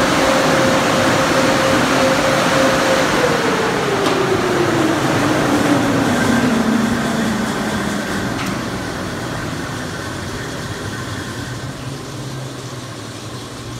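D&S Super 5000 in-bay car wash machine winding down: a loud rushing noise with a steady whine that, about three seconds in, falls in pitch over several seconds as a motor spins down, while the rushing fades away.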